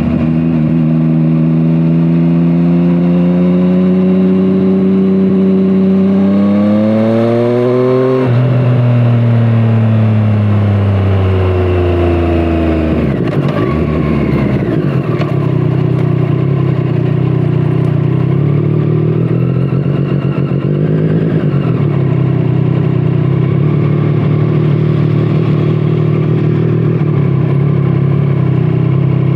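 2017 Triumph Street Triple 765 RS inline-three engine through a Scorpion Serket Taper exhaust, revving up steadily for about eight seconds under acceleration. It then falls in pitch as the bike slows, and settles to a steady, lower, uneven note for the second half.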